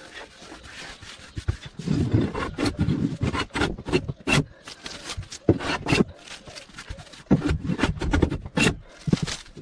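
Hand work on wood: rough rubbing or scraping strokes on wood, mixed with many sharp knocks and clicks.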